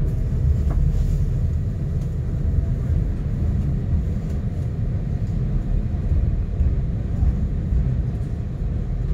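Steady low rumble of a river boat underway.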